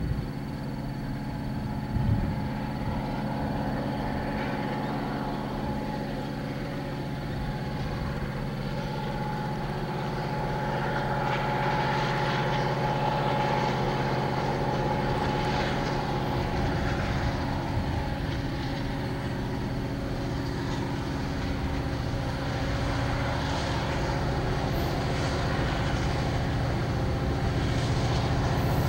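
Two EMD SD70ACe/BB diesel-electric locomotives approaching at the head of a freight train: a steady engine drone that grows gradually louder.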